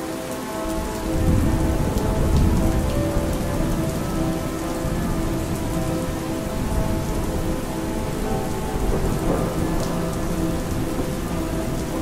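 Recorded rain falling steadily, with a low rumble of thunder rolling in about a second in and fading over the next few seconds. Faint steady tones sit underneath.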